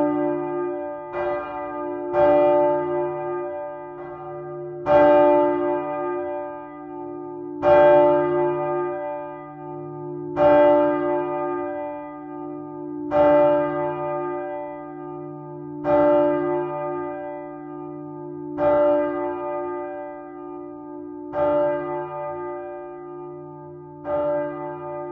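Large swinging church bell, Antoninus, cast by Michiels of Tournai in 1957 and tuned to d1, tolling with a hum and long ringing after each stroke. The clapper strikes about every second and a half at first. From about two seconds in, it strikes only about every two and a half to three seconds, each stroke fading into the next.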